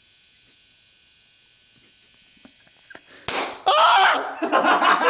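An electrolytic capacitor inside a speaker plugged straight into mains power bursts with one sharp bang about three seconds in, followed at once by loud voices.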